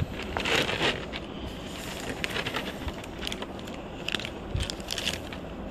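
Plastic packaging crinkling and rustling as hands handle a figure just taken out of its box, with a longer rustle in the first second and scattered crackles and small clicks after.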